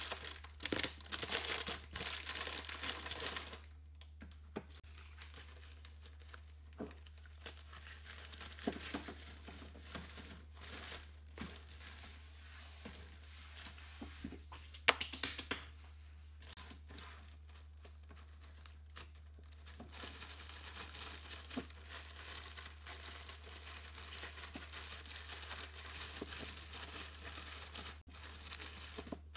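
Plastic biscuit packet being torn open and crinkled by hand, then a zip-lock bag holding the biscuits rustling and crinkling as it is handled and pressed flat, with one sharp click about halfway through. The biscuits are bagged to be crushed into crumbs for a crust.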